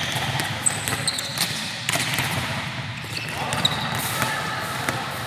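Volleyballs being bumped, dug and bouncing off a sports-hall floor during a team passing drill: irregular, overlapping slaps and thuds, echoing in a large gym, with a few short high squeaks.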